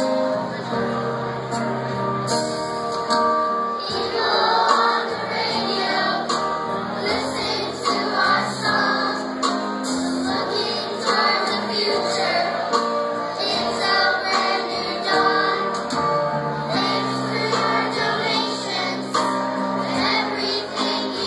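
A group of children singing a song together in unison, with live instrumental accompaniment.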